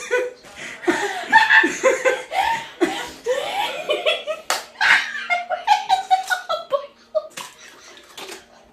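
Raw eggs being cracked on a person's head: a run of sharp smacks, the loudest about four and a half seconds in, with laughter around them.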